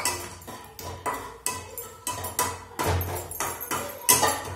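Metal spatula scraping and knocking against an aluminium kadai while stirring cashews and raisins frying in ghee, two or three strokes a second.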